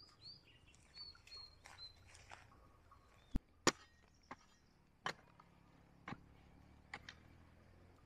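Small birds chirping in short high notes for the first two seconds, then a hoe chopping into dry earth, about six sharp strikes at uneven intervals.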